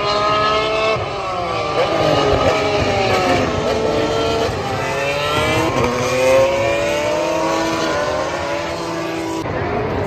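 Several Formula 1 cars with turbocharged V6 engines passing at speed, their engine notes overlapping and sliding up and down in pitch as they go by. The sound cuts away abruptly near the end.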